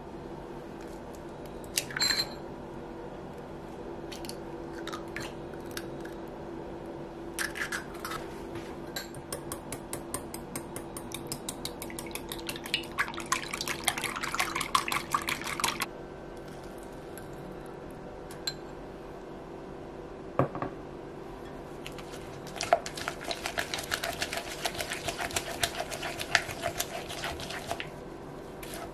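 An egg cracked sharply against a glass bowl, then beaten briskly with a small wire whisk, with rapid clinking strokes against the glass for several seconds. Later, a thick cake batter is stirred and scraped with a silicone spatula in a large glass bowl, in a long run of quick strokes.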